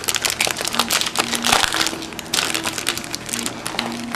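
Foil wrapper of a baseball card pack crinkling and tearing as it is ripped open by hand, a dense run of crackles.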